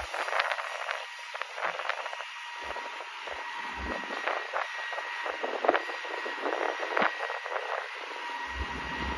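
Wind buffeting the microphone in gusts, with irregular crunching steps on gravel.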